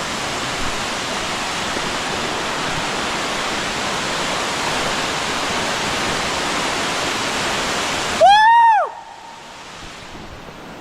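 Steady rush of a waterfall pouring over rocks. Near the end comes a brief, loud pitched call that rises and then falls, and after it the water sound is much quieter.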